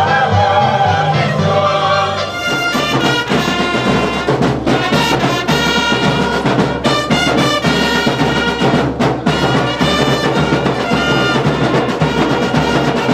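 Music: a sung passage gives way about two seconds in to instrumental music with brass and a steady beat of percussion.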